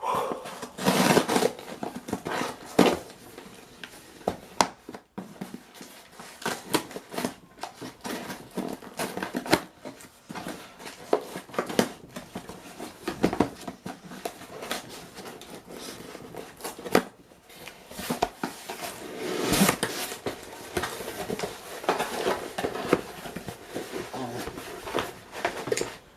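A cardboard box and its packaging being opened and handled by hand: irregular rustling and crinkling with many sharp clicks and knocks, busiest near the start and again about two-thirds of the way through.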